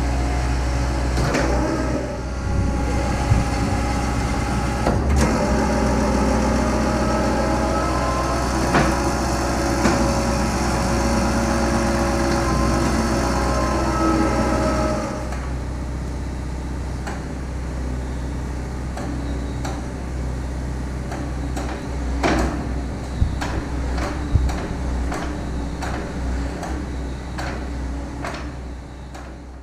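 An excavator's engine running steadily while its hydraulics work a TreeMaster MS300 tree shear head, with sharp knocks from time to time. The sound steps down in level about halfway through.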